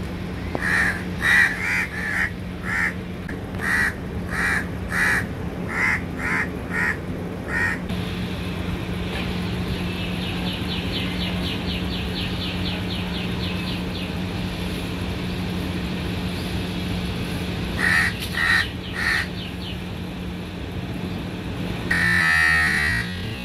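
Crows cawing, over a dozen caws in quick succession in the first eight seconds and three more later on, over a steady low hum. A fast ticking trill runs for a few seconds in the middle.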